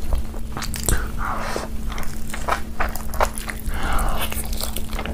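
A person eating close to the microphone: noodles slurped in, then roast chicken bitten into and chewed, with wet smacking and many small clicking mouth noises over a faint steady hum.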